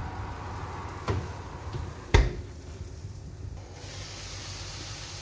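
An oven door shutting with a sharp thud about two seconds in, after a lighter knock about a second in. Near the end a steady sizzle starts as diced potatoes fry in a pan.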